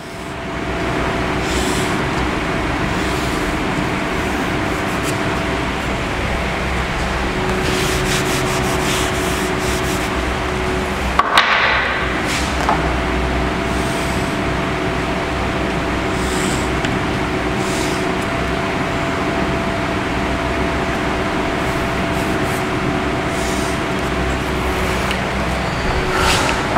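Steady room hum with a faint droning tone running under it. A short scrape comes about eleven seconds in and a softer one near the end, as a marker is drawn across the board.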